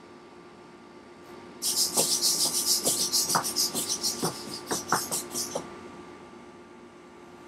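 Micro servos (Tower Pro MG90S) of a Raspberry Pi hexapod robot whirring in quick bursts as it steps, starting about a second and a half in and stopping about four seconds later, with its aluminium feet tapping on a hardwood floor. A faint steady hum before and after.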